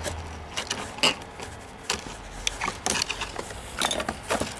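Scissors snipping plastic retaining ties, with the plastic toy truck and its box packaging clicking and rattling as they are handled; irregular sharp clicks, the loudest about a second in.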